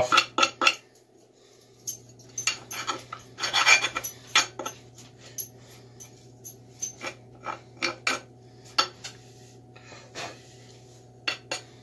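Nicholson four-in-hand file rasp scraping across a wooden axe handle in short, irregular strokes, chamfering off the handle's square corners.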